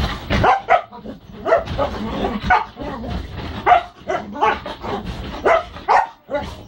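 A young dog barking and yipping in short, irregular bursts, about one or two a second, worked up in rough play with a person's hand.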